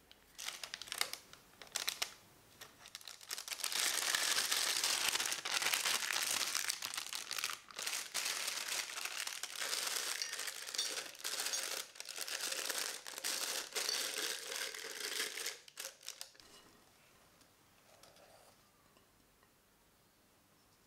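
A few scissor snips through a disposable plastic piping bag, then a long stretch of crinkling as the bag is opened, pushed into a glass jug and folded over its rim. The crinkling stops about three quarters of the way through.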